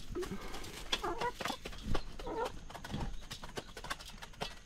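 Chickens clucking, with short calls about once a second, over a patter of sharp taps from beaks pecking at food.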